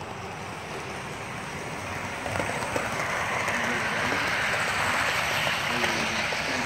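Model freight train led by Delaware & Hudson GP38-2 and GP35 diesel locomotives rolling past close by. It makes a steady rushing, rolling noise with a few sharp clicks of wheels on the track, growing louder from about two seconds in as the cars pass.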